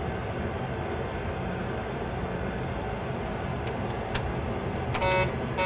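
Steady rumble of the Boeing 737 simulator's aircraft noise through the flare and landing with both engines out, with a few sharp clicks in the second half. Near the end an intermittent warning horn starts to sound twice: the takeoff configuration warning, set off because the thrust levers are still forward.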